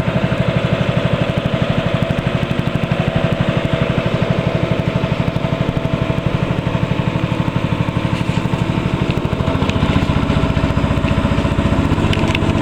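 Small boat engine running steadily with a fast, regular putter; its note shifts slightly near the end.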